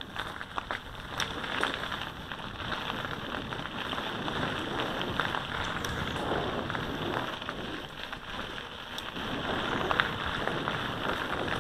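Mountain bike tyres rolling over a gravel forest track: a steady crunching crackle with many small clicks and rattles of grit and bike parts.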